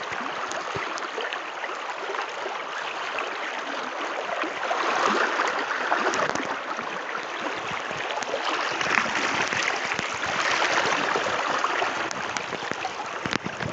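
Steady rushing of a fast mountain river by a waterfall, swelling a little in the middle, with a few sharp clicks near the end.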